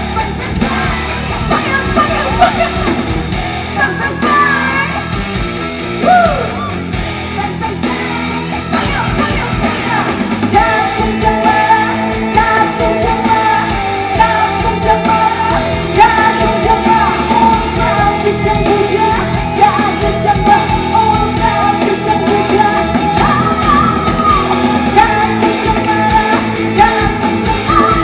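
A live rock band with electric guitar plays through a concert sound system while a woman sings lead over it.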